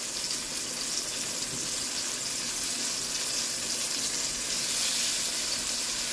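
Flour-dusted snapper pieces sizzling as they deep-fry in hot oil in a pot, a steady hiss.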